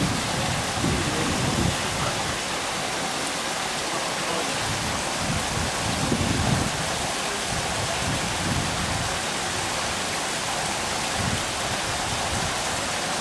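A small waterfall pouring in a sheet over a rock ledge into a stream pool, making a steady rushing splash. Wind buffets the microphone with low rumbles in gusts over the first half.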